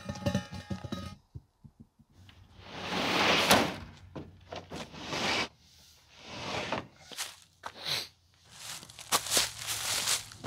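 A welding-gas cylinder being handled in a pickup bed: scraping swells and dull thunks as it is slid across the plastic bed liner, with sharper knocks and clicks near the end. Background music plays for the first second.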